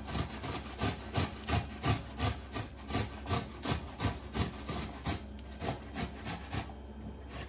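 Halved tomato being rubbed on a hand grater over a bowl, making regular rasping strokes at about three a second, with a couple of brief pauses.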